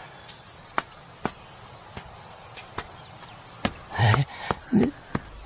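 A series of about eight sharp, irregular taps and clicks, loosely like footsteps on a hard path, over a low background hiss, with two short low voice-like sounds near the end.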